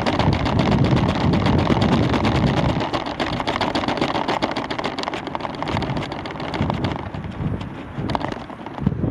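Wind rumbling over the microphone of a camera hanging under a rising weather balloon, with fast, irregular clicking and rattling from the payload throughout. The rumble eases after about three seconds.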